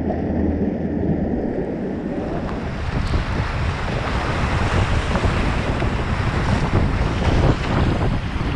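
Whitewater rapids rushing and splashing around a packraft as it runs the rapid. The rush fills out and grows hissier from about two seconds in.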